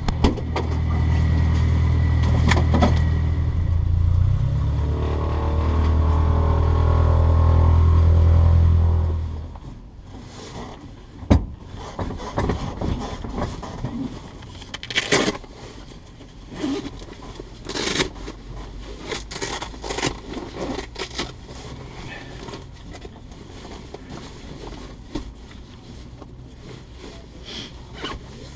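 A loud, steady, low mechanical hum stops about nine and a half seconds in. After that come scattered clicks, scrapes and rustling as a seat harness and a padded jacket are handled.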